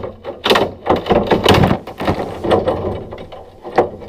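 Thin sheet-steel strip, cut from the sliding door's edge, scraping and rattling against the panel in several irregular bursts as it is worked loose and lifted away by hand.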